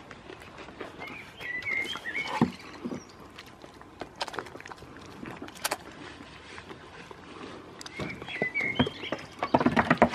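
A goat biting and crunching a piece of vegetable taken from the hand, in scattered crunches with a dense run of them near the end. A short chirping call is heard twice.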